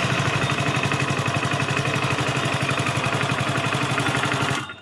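Hero Splendor Plus BS6 single-cylinder engine idling with an even, steady beat, without the self-starter noise now that the starter's bush has been greased. The engine sound stops abruptly near the end.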